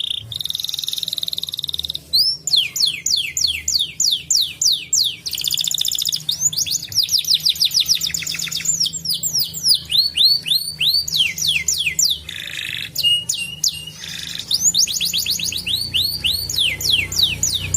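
Domestic canary singing a long, unbroken song. It opens with a held rolling trill, then moves into runs of quickly repeated falling notes, several a second, with fast trills between and a short buzzy phrase and whistle about two-thirds of the way through.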